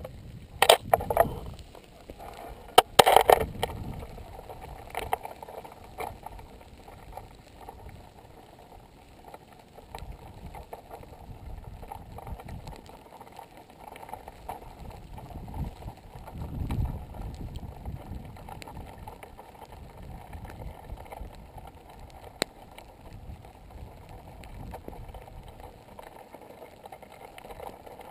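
Crackling and ticking of a pahoehoe lava flow's cooling crust as molten lava pushes against it and breaks it up. Two louder bursts of crackling come within the first few seconds, and a low rumble swells about halfway through.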